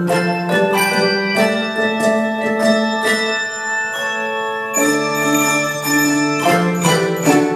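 Instrumental music of ringing, bell-like struck notes over held low chords, with fresh chords struck every second or so.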